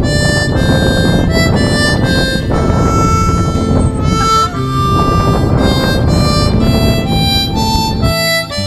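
Background music: a melody of held notes over a dense accompaniment that drops away near the end.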